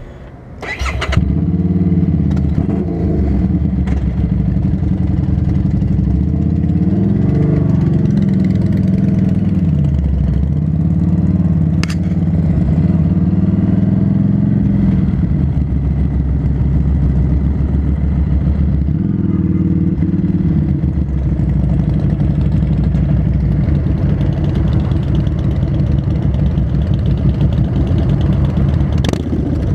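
Harley-Davidson Street 500's V-twin engine starting up about a second in and running loudly. It then rides off, its pitch rising and dropping several times as it works through the gears.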